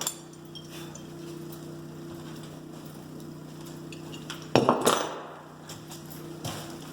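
Schlage deadbolt hardware clinking and knocking as the metal parts are handled: light clicks, then a louder clatter of metal knocks and scrapes about two thirds of the way through, and a last click near the end. A steady low hum sits underneath.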